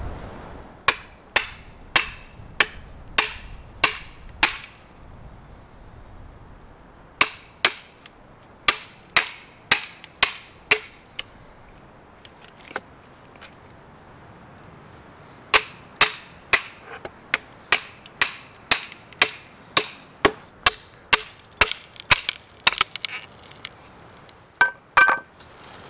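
Steel hammer striking the back of an axe head set into the top of a standing sapling, driving the blade down to split the wood for an arrow shaft: sharp metal-on-metal blows, about two a second, in runs with short pauses between.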